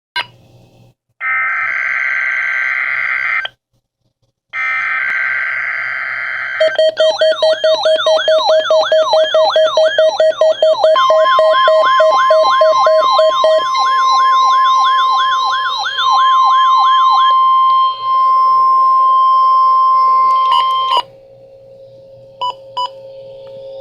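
NOAA Weather Radio weekly test alert on weather alert radios. Two long harsh buzzing digital header bursts come first. Then several radios' alarms go off together, with fast beeping and rapidly warbling siren tones, over the steady 1050 Hz warning alarm tone, which runs about ten seconds and cuts off suddenly, followed by two short blips.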